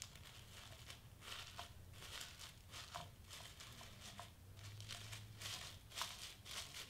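Faint crinkling and rustling of tissue paper as it is pressed into glue and scrunched by hand, in many irregular little crackles.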